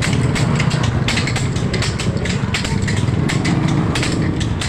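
Irregular sharp slaps, several a second, of penitents' whips striking their bare backs, over the steady drone of a small engine running.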